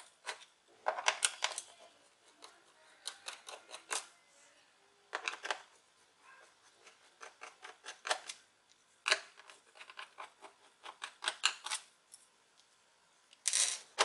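Short runs of light plastic-and-metal clicks from a small screwdriver and loose screws as screws are taken out of a laptop's plastic bottom cover, a few clicks at a time with pauses between, and a louder cluster near the end.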